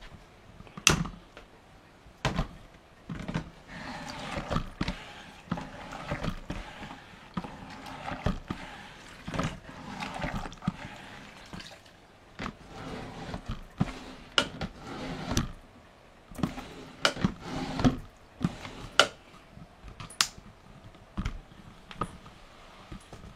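Mop being pushed back and forth across a floor: rough swishing strokes broken by frequent, irregular knocks and clacks from the mop head and handle.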